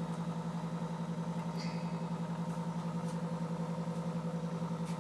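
Steady mains hum and buzz from a powered-up late-1950s Admiral 329 tube record player with its turntable motor spinning, pulsing quickly and evenly.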